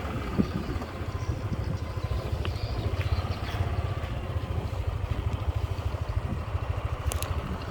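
Motorcycle engine running steadily, a fast low pulsing throughout.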